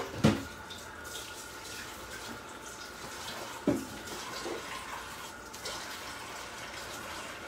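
Water running steadily from a tap, with two sharp knocks, one just after the start and one a little past halfway.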